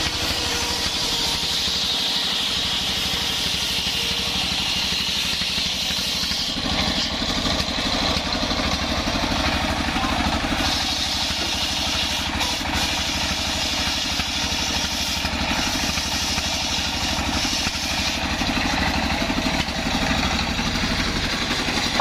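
Belt-driven circular saw of a homemade sawmill ripping young coconut wood, its stationary engine running steadily. The high cutting hiss weakens about six seconds in and comes back strongly later as the board is fed through.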